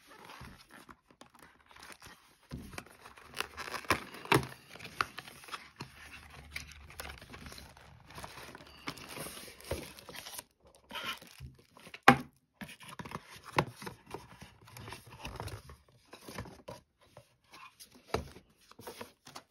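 Cardboard product box being opened and a blender in a thin plastic sleeve slid out and handled: rustling and crinkling of plastic and card with scattered clicks and taps, and a sharp knock about twelve seconds in as the loudest sound.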